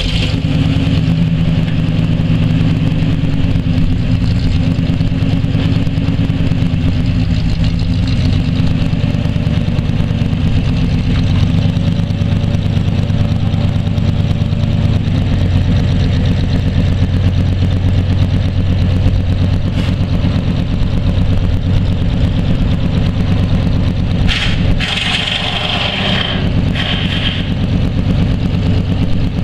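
1988 Chevrolet R30's 5.7-litre V8 gas engine starting and then idling steadily. Near the end a higher-pitched noise joins the idle for a couple of seconds while the truck's PTO-driven hydraulic hoist raises the dump bed.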